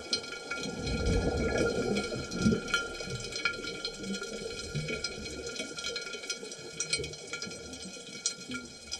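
Underwater recording on a reef: scuba divers' bubbles gurgling and surging, loudest about a second or two in, over a steady crackle of short clicks and a faint high hum.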